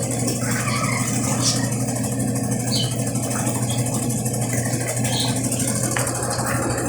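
Brastemp Ative 11 kg washing machine running, a steady motor hum with a few faint short sounds over it.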